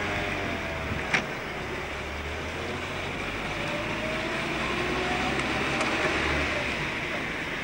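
Car driving along a street, heard from inside: steady engine and road noise with a deep rumble, and one sharp click about a second in.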